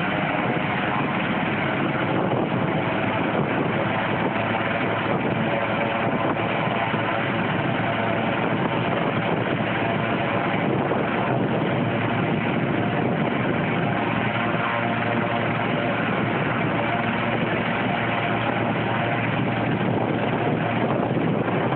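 Medevac helicopter running on the ground at idle before lift-off: a steady rush from the turbine engine and turning main rotor, with a faint whine over it.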